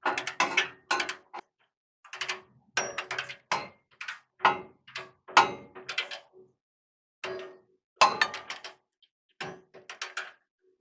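Torque wrench's ratchet head clicking in five short runs as it is swung back and forth, tightening the rear shock absorber's top mounting nut on its stud toward 30 ft-lb.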